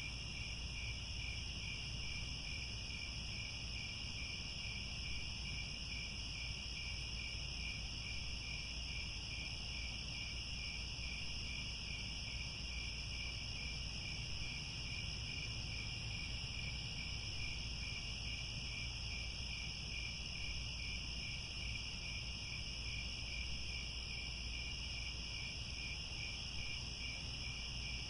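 A chorus of crickets chirping steadily, with two overlapping layers of song: a lower trill with an even pulse and a higher continuous one. A faint low rumble sits underneath.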